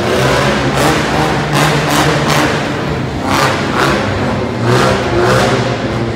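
Mini monster truck engine revving as it drives on a dirt track, rising and falling with repeated throttle surges.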